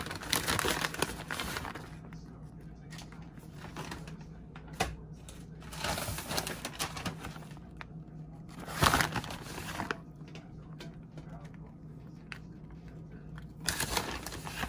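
Plastic bag of shredded cheese crinkling in four bursts as it is handled and opened, the loudest about nine seconds in, over a steady low hum.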